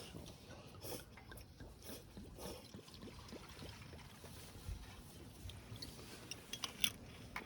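Sake being poured into a cup, a faint trickle of liquid, with a few small clicks and knocks of handling.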